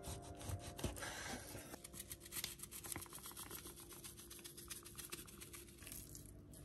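Large knife slicing raw chicken breast on a bamboo cutting board, with a few soft knocks against the board, then a long run of rapid dry rasping clicks. Faint background music underneath.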